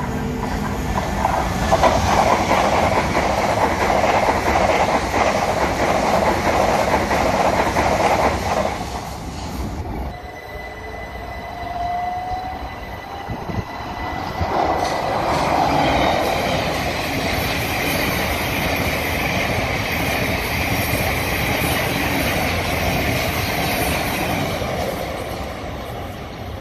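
Southern Class 377 electric multiple-unit trains passing close by, their wheels running and clattering over the rails. The noise eases about ten seconds in, with a faint steady whistle and a brief rising whine, then builds again as another train passes.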